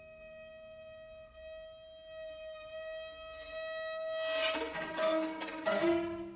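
String quartet playing contemporary concert music: a single high note held steadily for about four seconds, then from about four seconds in more notes join with sharp, accented bowed attacks and the sound grows louder.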